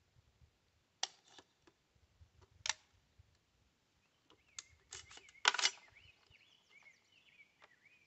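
A few sharp clicks and clatters from handling an AR-15-style rifle on a bench rest, in small groups about a second in, near the middle and just past halfway. Small birds chirp faintly in the background.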